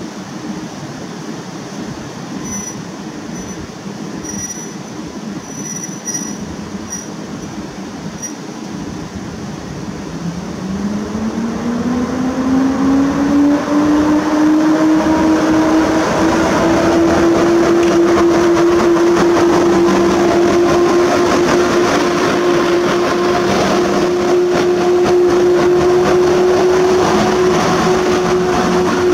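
EP08 electric locomotive hauling an Intercity train pulling out: a low steady rumble for about ten seconds, then a whine that rises in pitch and settles into a steady tone. The sound grows much louder with wheel and rail noise as the locomotive and coaches pass.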